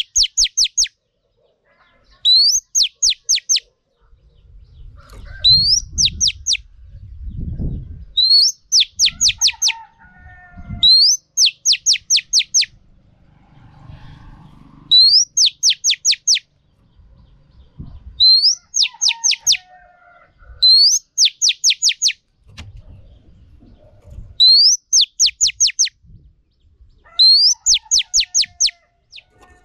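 Female Oriental magpie-robin calling over and over, about once every three seconds: each phrase is a quick rising whistle followed by a fast run of four or five high, falling notes. This is the female call used to rouse male magpie-robins to sing. Faint low thumps and rustles come between some of the phrases.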